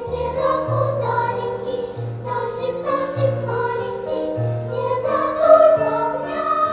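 Children's choir singing with instrumental accompaniment, a low bass note changing about once a second under the voices.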